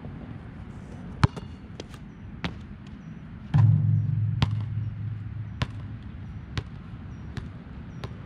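Nike Jordan Hyper Grip 4P basketball bouncing in sharp, separate impacts a second or so apart. A heavier impact about three and a half seconds in leaves a low hum that fades over about a second and a half.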